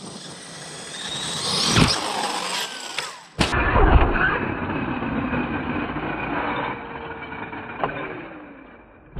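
Losi DBXL-E 1/5-scale electric RC buggy running at speed, its brushless motor whine and drivetrain noise growing louder as it closes in. A sudden loud thump comes about three and a half seconds in, then running noise and a whine that falls slowly in pitch as the car slows.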